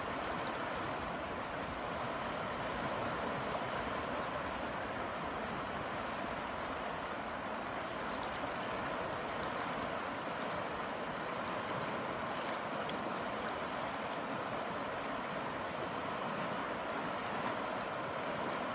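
A river's fast current flowing past the bank: a steady, even rush of moving water.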